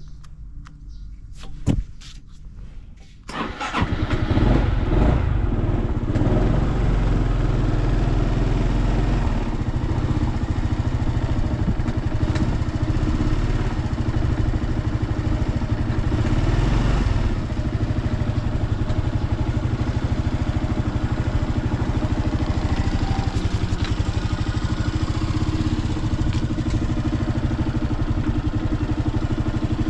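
Honda PS250 scooter's single-cylinder four-stroke engine being started: a few light clicks, then it catches about three seconds in and runs at a steady idle, a little higher for the first stretch and settling slightly lower about halfway through. It runs without abnormal noises, as the seller advertises.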